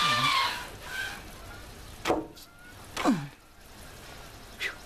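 A window being slid open: a scraping squeak at the start, then two squeals that fall steeply in pitch about a second apart, and a shorter one near the end.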